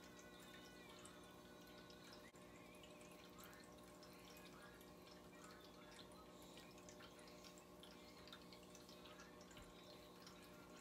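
Near silence: room tone with a faint steady hum and a few scattered soft ticks.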